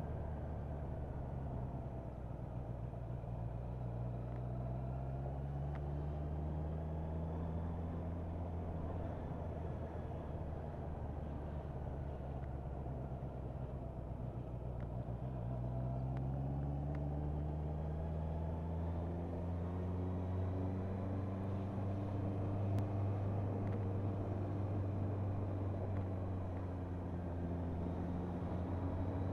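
Motorcycle engine running on the move, with road and wind noise. Its pitch rises as it pulls away a few seconds in, sinks as it slows around the middle, then rises again as it accelerates.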